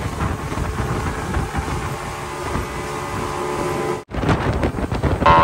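Yamaha 200 outboard motor running steadily at speed, with wind buffeting the microphone. The sound drops out for an instant about four seconds in and comes back louder.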